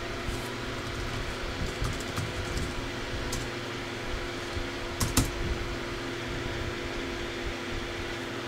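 Clicks from an iBook G3 laptop's controls as it is operated: a few light clicks in the first three seconds, then two sharp clicks about five seconds in, over a steady hum.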